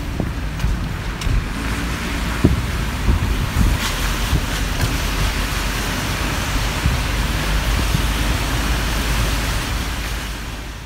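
Wind on the microphone: a steady rushing noise with a deep rumble.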